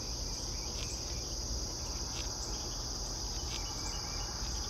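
Rhythmic crunching of a cerambycid beetle larva chewing white pine wood beneath the bark, a short crunch about every second and a half, over a steady high-pitched insect chorus.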